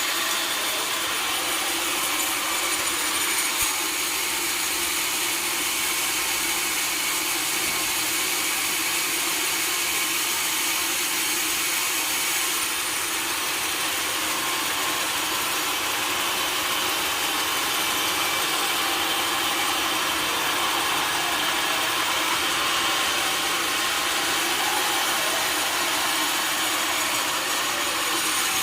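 Sawmill saw cutting through a log, a steady unbroken noise.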